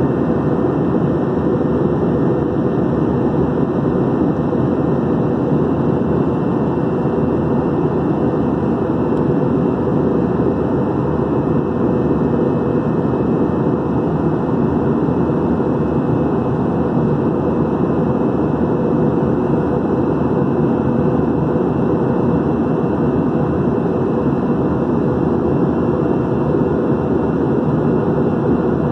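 Steady cabin noise inside an Airbus A321-211 in flight: a constant low rush of engine drone and airflow that does not change.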